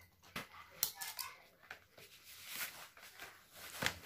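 Stiff chart paper rustling and crackling as a freshly cut stencil is handled and its cut pieces are lifted, with a few sharp snaps.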